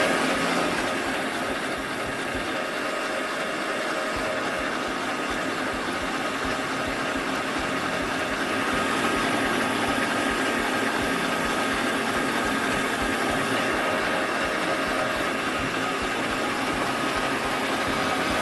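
Electric stand mixer running steadily with a motor whine, its beater creaming ghee, powdered sugar and egg in a stainless steel bowl.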